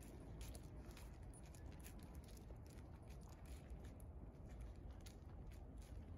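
Faint crunching of a Thoroughbred's hooves and a person's footsteps walking on wood chips: soft, irregular ticks, several a second, over a steady low rumble.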